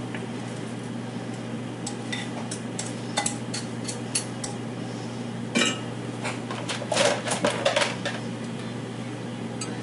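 Spoon clinking and scraping against dishes as chicken dip is spooned into a baking pan: scattered clicks, with a quick run of them about seven to eight seconds in.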